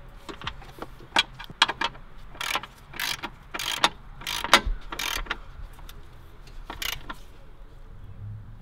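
Ratchet wrench working the small bolts of a battery tray: a run of sharp clicks and short ratcheting bursts that stops about seven seconds in.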